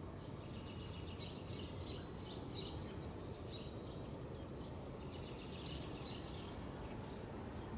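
Small songbirds twittering in quick high chirps, in two spells, over a steady low outdoor rumble.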